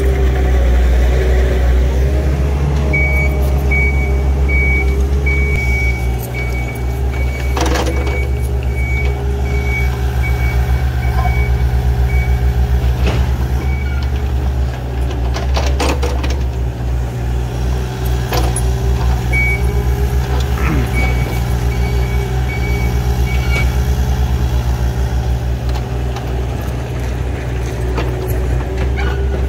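Diesel engines of compact earthmoving machines, a mini excavator and a skid steer, running steadily while one machine's back-up alarm beeps in a repeating high tone for long stretches. A few sharp metallic knocks stand out.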